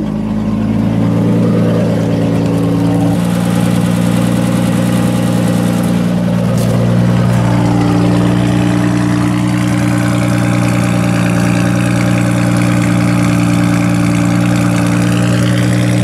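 BMW E30 engine idling steadily, heard at the twin exhaust tips. It is running again after a no-start was fixed with a new fuel pump, spark plugs, distributor cap and rotor.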